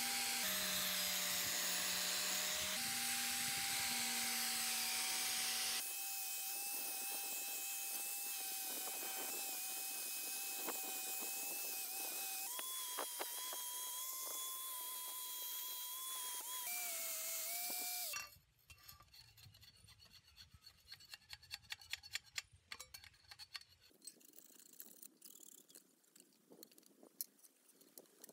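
Electric angle grinder with a wire wheel stripping paint from a steel bicycle fork: a steady motor whine over a harsh grinding hiss, its pitch shifting a few times. About two-thirds through it stops, and a hand scraper follows with quiet, irregular scrapes and clicks on the metal.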